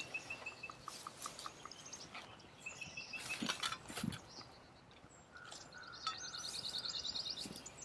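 Small birds chirping outdoors in short repeated high notes, with a fast trill near the end. Soft rustles and knocks of canvas gear being handled.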